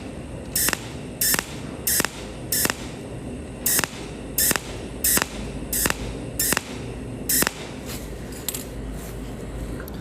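Pulsed cold welding machine firing short weld spots one after another while stainless steel filler wire is added: about ten brief sizzling zaps, roughly one every 0.7 s, growing fainter near the end, over a steady low hiss.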